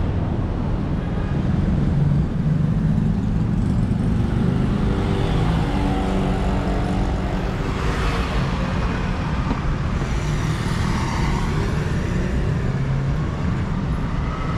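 Road traffic: motor vehicle engines running in a steady low rumble, with a louder swell about eight seconds in.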